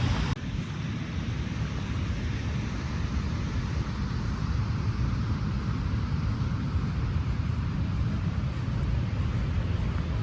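Waterfall running with a steady rush of falling water and a deep rumble. There is a brief break about half a second in.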